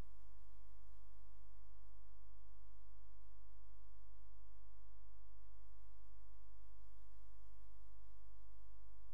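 Steady, unchanging hum: a deep low tone with many evenly spaced overtones above it. No sound of the bicycle or the street comes through.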